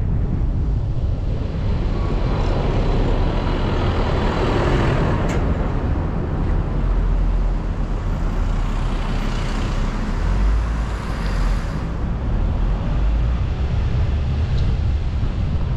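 A car driving along a road, heard through a GoPro microphone: steady deep rumble of wind on the microphone and tyre noise, swelling louder twice.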